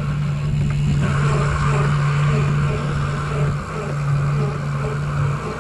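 Fishing boat's engine running steadily underway, a constant low hum, with water rushing along the hull.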